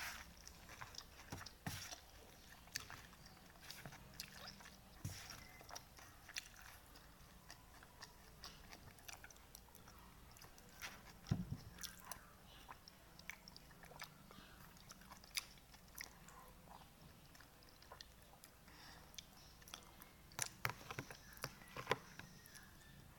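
A person chewing and eating pansit batil patong noodles close to the microphone: faint, scattered wet clicks and smacks, with a louder one about eleven seconds in and a cluster near the end.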